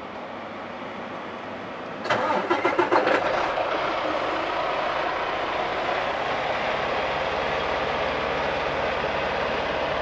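Freightliner Cascadia diesel truck engine being cranked by its starter about two seconds in, with a quick run of rapid, even strokes, catching after about a second and a half and then idling steadily.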